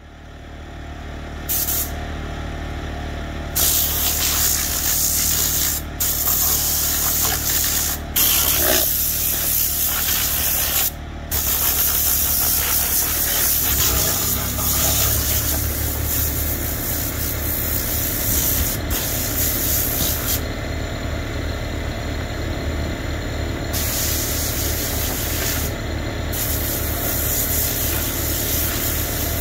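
Bursts of hissing spray from a hand-held detailing tool, switched on and off repeatedly while cleaning a car's interior, over a steady engine hum.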